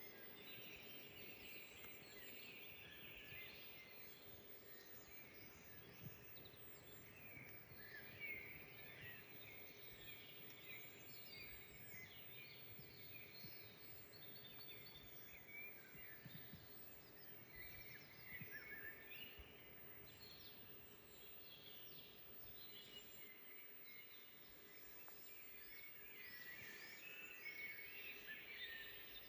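Faint forest birdsong: several small birds chirping and trilling at once, the calls short and overlapping, over a steady background hiss.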